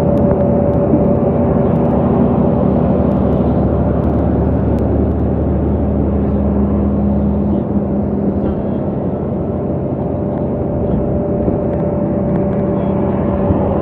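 Steady road and engine noise from inside a bus cruising at highway speed, a low rumble with a constant hum running through it.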